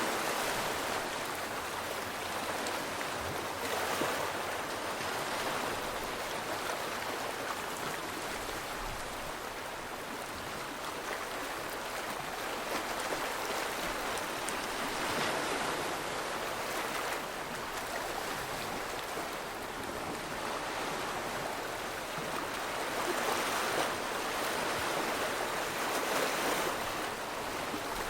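Steady rush of moving water, swelling and easing every few seconds.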